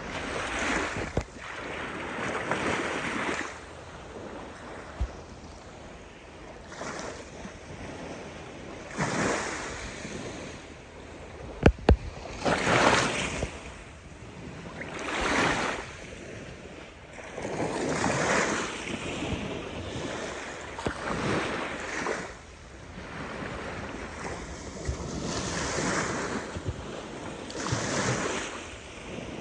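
Small waves washing onto a sandy beach, a hiss that swells and fades every few seconds, with wind buffeting the microphone. A couple of sharp knocks come about twelve seconds in.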